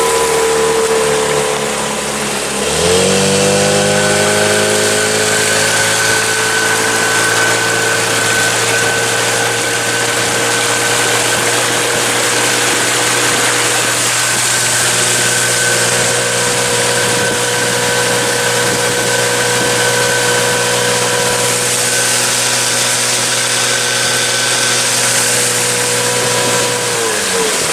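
Boat outboard motor running under way. The pitch dips, then climbs quickly about three seconds in as the throttle opens, and holds steady at cruising speed. Near the end it drops off as the throttle is eased back.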